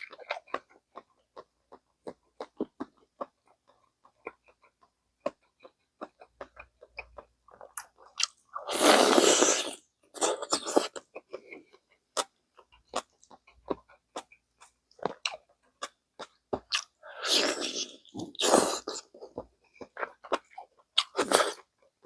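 Close-miked eating of gamjatang, pork-bone soup: soft chewing and mouth clicks throughout, with louder noisy stretches of about a second around nine seconds in, twice between seventeen and nineteen seconds, and once near the end.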